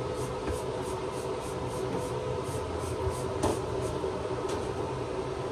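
Quick hissing spritzes of a trigger spray bottle of detangling conditioner, about three or four a second for the first three seconds and a couple more later, over a steady low machine hum.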